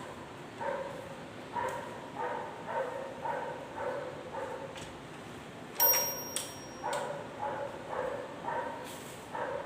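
A dog barking repeatedly, about twice a second. A few sharp clicks sound between the barks, the loudest about six seconds in with a brief high ring.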